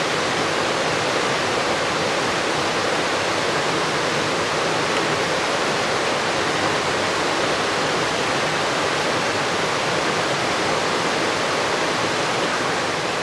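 Fast spring-fed stream rushing over rapids and riffles: a steady, full roar of moving water.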